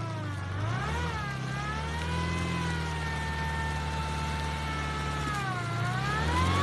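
VAZ 21099 four-cylinder petrol engine revving under load as the car pushes through mud. Its pitch rises about a second in, holds steady, then drops and climbs again near the end.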